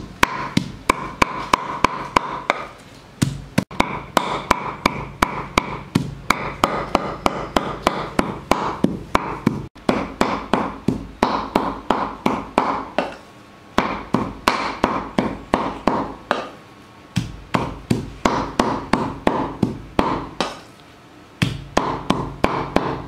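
Steel meat cleaver chopping raw pork on a round wooden chopping board, mincing it with quick, even strokes of about four or five a second, pausing briefly a few times.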